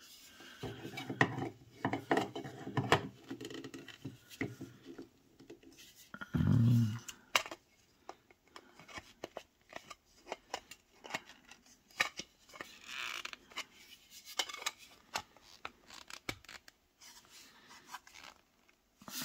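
Hard plastic clicking, knocking and scraping as a Juylux RGB light bar is worked into its plastic base stand, with many sharp clicks scattered through.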